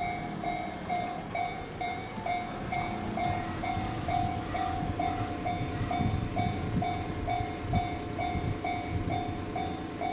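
Japanese level-crossing warning bell ringing, an electronic clang repeating about three times a second. A train's low rumble builds up under it from about four seconds in.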